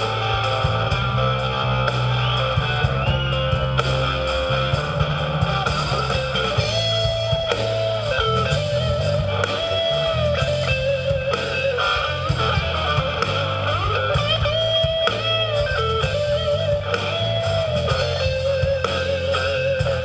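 Live blues-rock band playing an instrumental passage: an electric guitar lead with notes bent upward and shaken with vibrato, over electric bass and a drum kit.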